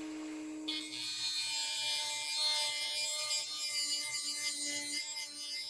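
Dremel rotary tool running at full speed, then grinding into a stripped, bent steel screw head from about a second in to cut a new screwdriver slot. The steady motor hum carries a high, hissing grind.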